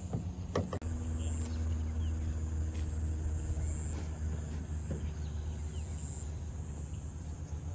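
Marsh ambience: a steady high-pitched insect chorus over a constant low rumble, with a couple of sharp knocks in the first second.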